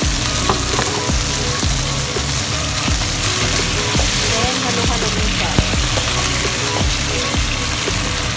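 Chicken wings sizzling in hot oil and oyster sauce in a nonstick wok, with a wooden spatula scraping and knocking against the pan as they are stirred.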